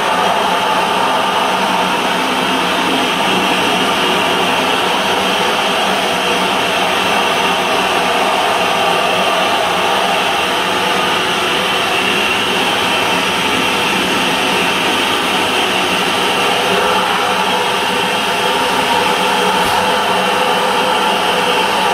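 Sandblasting gun in a blast cabinet running steadily: a loud, continuous hiss of compressed air and abrasive grit as it strips layers of paint off a cast-iron radiator.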